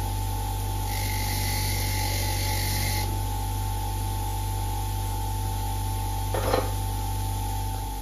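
Bench grinder fitted with a wire wheel running steadily with a motor hum. A dirty earth strap is held against the spinning wire brush for the first three seconds or so, adding a hissing scrub. It is pressed to the wheel once more in a brief scrape about six and a half seconds in.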